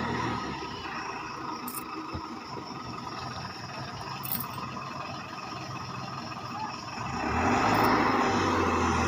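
School bus engine running at low revs, then growing louder about seven seconds in as the bus pulls away.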